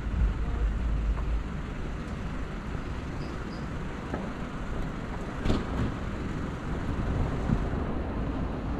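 City street ambience dominated by a steady rumble of road traffic, with a brief sharp knock about five and a half seconds in.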